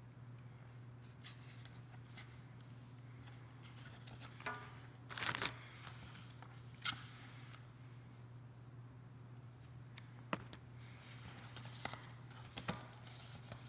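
An album's paper and plastic contents being handled, with scattered rustles and light clicks and a louder rustle about five seconds in, over a steady low hum.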